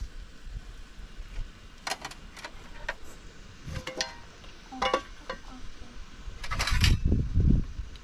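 Scattered light clicks and knocks, some with a short ringing tone, over a low rumble that grows louder near the end.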